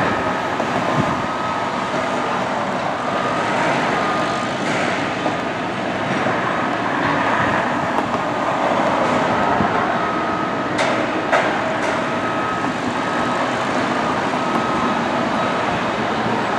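Steady running noise of a passenger train ride, rumbling and rattling along the track, with a faint on-and-off whine and two sharp clicks about eleven seconds in.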